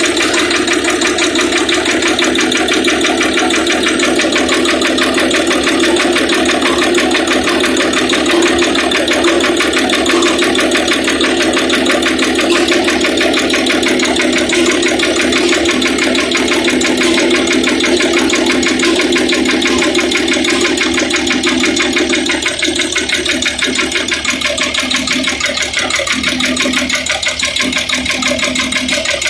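Freshly overhauled Hino straight-six diesel engine running steadily on a generator set during its post-overhaul test run, with a fast even firing rhythm. About two thirds of the way through its tone shifts a little and it gets slightly quieter.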